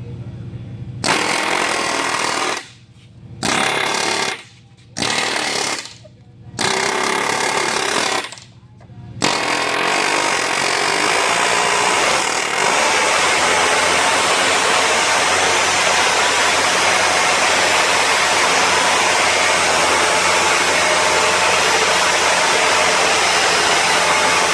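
Pneumatic air chisel (air hammer) with a riveting tool, hammering rivets into an upper ball joint. It goes in four short bursts with brief pauses, then one long unbroken run of about fifteen seconds that stops abruptly.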